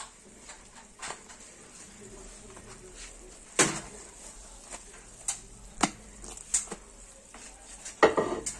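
Irregular light clicks and knocks of handling in a frying pan while pancakes are coated in melted butter and honey, the two loudest knocks about three and a half seconds in and near the end, over a faint high hiss.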